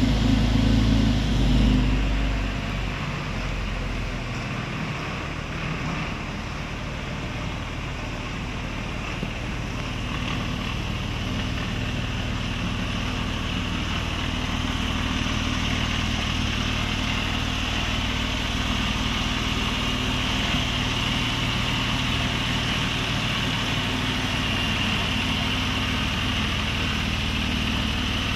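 Porsche 911 Carrera 4's flat-six engine idling, Sharkwerks-tuned. It runs louder for about the first two seconds, then settles to a steady idle.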